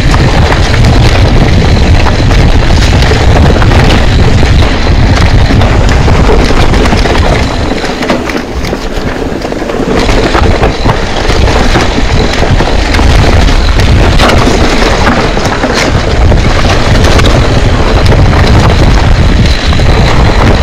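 Wind buffeting an action camera's microphone over the rumble and rattle of a mountain bike riding a rough trail, with many sharp knocks from the bike. It eases off briefly about eight seconds in, then picks up again.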